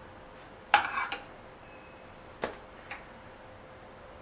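Steel spatula scraping and tapping on a non-stick frying pan as pav buns toasting in butter are turned: a short scrape about a second in, then a sharp tap about two and a half seconds in and a fainter one just after.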